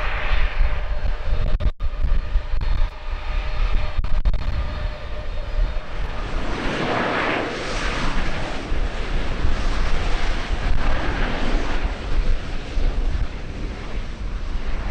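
Airliner engines running, with a steady whine early on and a swell of engine noise about halfway through, under heavy wind buffeting the microphone.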